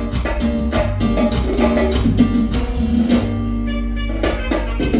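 Instrumental cumbia music with bass, drums and percussion, playing at full level with a brief break in the middle.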